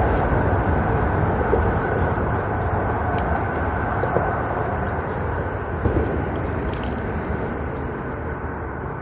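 A passing engine's steady low rumble, slowly fading, with a high chirp repeating about three times a second over it.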